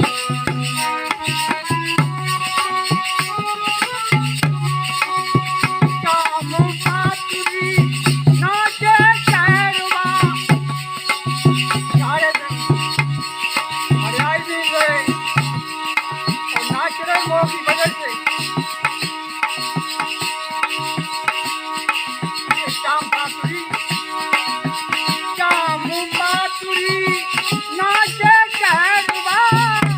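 Indian folk-style music: a melody with sliding notes over a held drone, driven by fast tabla-like hand-drum beats and rattles.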